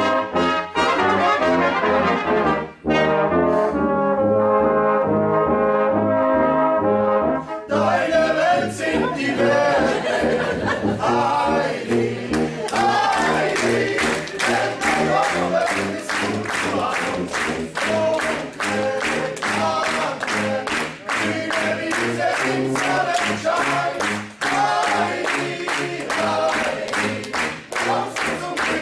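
Small brass ensemble of trumpets, tuba and trombone playing a polka. About eight seconds in the trumpets drop out and voices sing over steady handclaps, about two to three a second, and the tuba's oom-pah bass.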